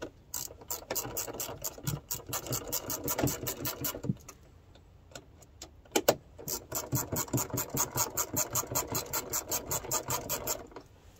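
Hand ratchet with a 10 mm socket on an extension clicking rapidly as it backs out the bolts holding a door check strap to the door pillar. Two long runs of fast, even clicks, with a pause of about two seconds and a few single clicks between them.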